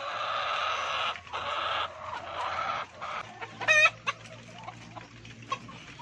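Caged white laying hens calling loudly. A run of long, harsh calls with short breaks fills the first three seconds, then one short, sharp squawk follows a little before four seconds in.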